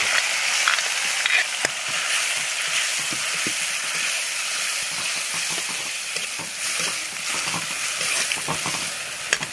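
Chopped tomatoes, dried red chillies and curry leaves sizzling steadily in hot coconut oil in an aluminium wok, the tempering of a rasam with the tomatoes being wilted. A steel ladle stirs them, with scattered scrapes and taps against the pan.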